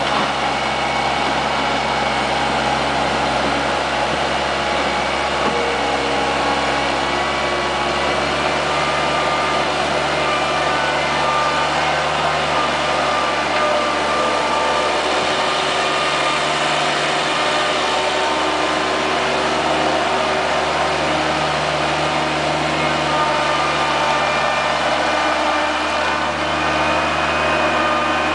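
Bobcat skid steer's engine running steadily at a constant speed, with a slight change in its note about eight seconds in.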